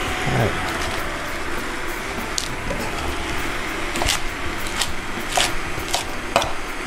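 Chef's knife chopping wet escarole on a wooden cutting board: a handful of separate, irregular chops from about two seconds in, over a steady background noise.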